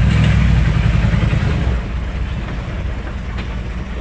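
Heavily loaded dump truck's diesel engine working hard, pulling on a soft, waterlogged gravel road under the weight of its load of rocks. It is loudest over the first two seconds, then settles to a steadier, lower run.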